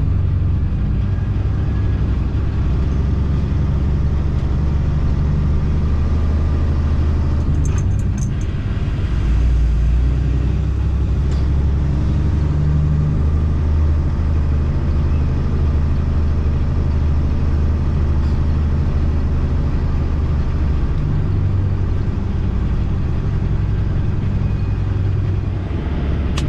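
International Prostar semi-truck's diesel engine running with a steady low hum, heard inside the cab, with a few faint clicks about eight seconds in.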